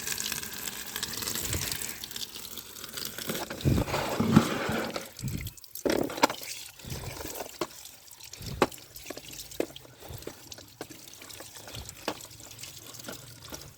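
Water running and splashing as muddy toy vehicles are washed, denser for the first few seconds, then thinner with many small sharp knocks of the toys.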